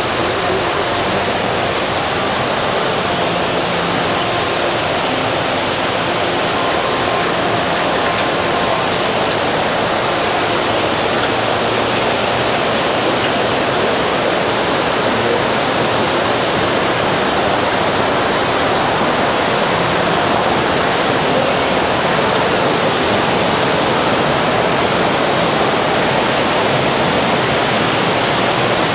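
Steady rush of running water, an even hiss and roar that holds at one level.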